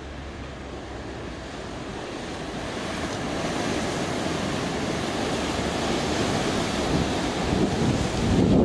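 Ocean surf washing and breaking against a rocky shore, growing steadily louder, with wind buffeting the microphone.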